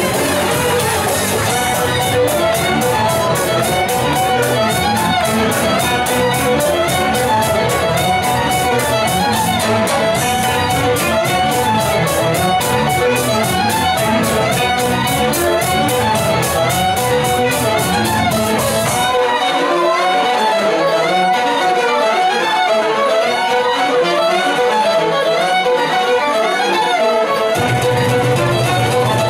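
Live folk ensemble playing a fast dance tune, fiddles leading the melody over acoustic guitar and tuba with a quick, even beat. About two-thirds of the way through the bass and beat drop out for several seconds, leaving the fiddles, then the bass comes back in near the end.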